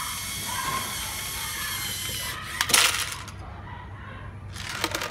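Small plastic LEGO pieces clattering into a clear plastic tub: one loud rattle about two and a half seconds in, and a shorter burst of clicks near the end.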